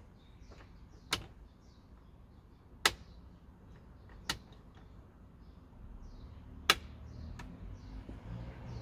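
Four sharp clicks or knocks, spaced one to two and a half seconds apart, over faint birdsong.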